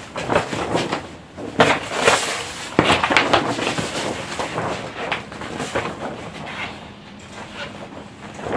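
A large folded paper poster being unfolded and shaken open: irregular crackling paper rustles, busiest in the first half and thinning out toward the end.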